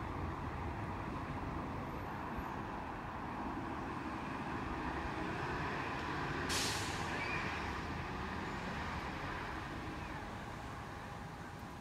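Steady low rumble of distant road traffic, with a brief sharp hiss about six and a half seconds in.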